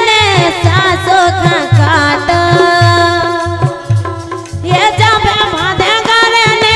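A woman singing a folk song through a microphone, accompanied by a harmonium and a drum beating a steady rhythm about twice a second.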